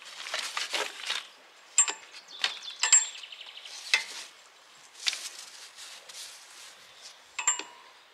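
Gear being unstrapped from a motorcycle's rear rack: rustling and scraping of straps and fabric, with four sharp metallic clinks that ring briefly.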